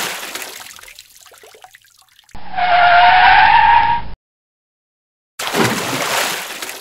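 A toy truck's splash into shallow water fading out, then a dubbed-in tire-screech sound effect lasting about two seconds that starts and stops abruptly, a second of dead silence, and a second loud splash as another toy truck lands in the water and fades.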